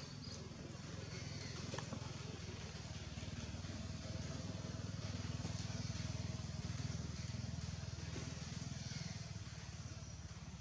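Engine of a passing motor vehicle: a low steady drone that swells through the middle and fades near the end.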